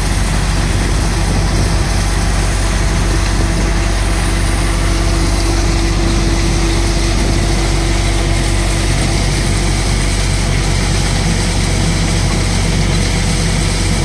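Double Sher thresher running steadily at work threshing moong: a constant mechanical hum from the drive with an even rushing noise of the threshing drum, blower and falling grain.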